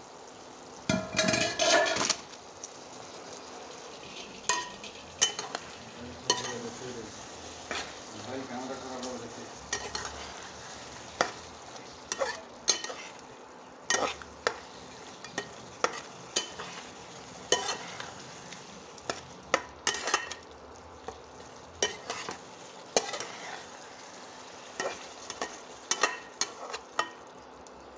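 A spatula stirring chicken pieces in masala in a pan, with repeated clicks and scrapes against the pan over a steady sizzle. There is a loud metal clatter about a second in. The chicken is partway through cooking and is being stirred so it does not catch on the bottom.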